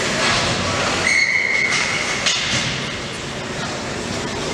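A single steady whistle blast lasting just over a second, typical of a hockey referee's whistle stopping play. It sounds over the ongoing rink noise and crowd chatter.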